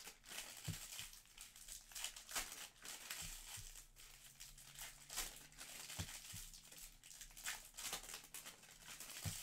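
Faint crinkling and rustling of trading-card pack wrappers being handled and torn open, in an irregular string of short crackles.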